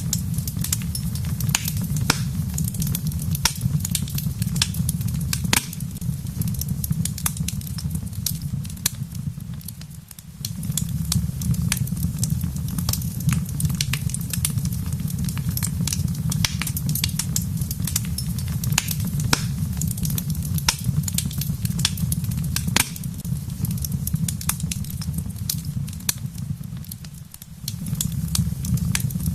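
Wood fire crackling in a fireplace, with frequent sharp pops and snaps over a steady low rush. The low rush dips briefly twice, about ten seconds in and near the end.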